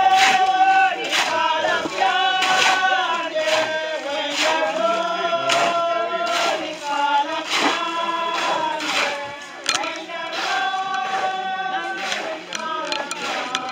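A group of men and women singing a hymn together, with sharp strikes keeping a steady beat.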